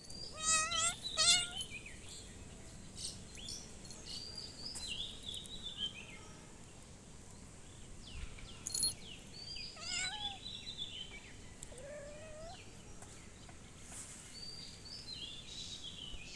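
A cat meowing: two loud, wavering meows about half a second apart at the start, then two more single meows later, the last one rising. Birds chirp in short, high, falling notes in between.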